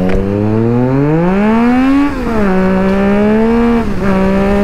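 Triumph Street Triple's inline three-cylinder engine accelerating hard through the gears. The revs climb for about two seconds and fall at an upshift, then rise gently and fall at a second upshift near the end.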